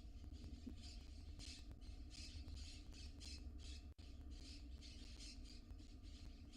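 Barn owl nestlings giving rasping, hissing begging calls, short bursts repeated about two to three times a second, with a brief break about four seconds in.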